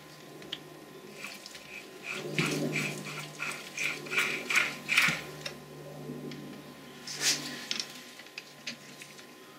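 Gear train of a Boxford lathe apron turned by hand, clicking in a regular rhythm about three times a second that grows louder, then a single sharper click later on.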